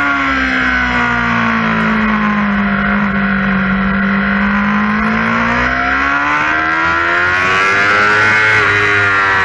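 Yamaha R6's inline-four engine heard onboard: the revs sink as the bike slows and leans through a corner, then climb steadily as it accelerates out, with a short drop near the end at a gear change, over steady wind rush.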